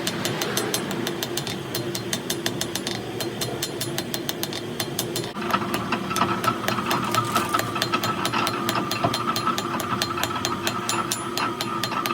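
Rapid, evenly repeating mechanical clicking like a ratchet, with a steady whine joining about five seconds in.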